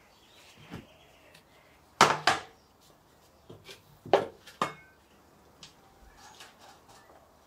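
Ceramic and plastic plant pots being handled and set down on a table during repotting: a handful of sharp knocks and clinks. The loudest come as a pair about two seconds in and another pair about four seconds in.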